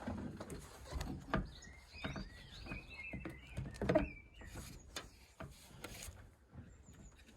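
Scattered knocks and clicks of hand work on a Land Rover Defender's bulkhead vent flap and its fittings, the loudest knock about four seconds in. Birds chirp in the background from about two seconds in.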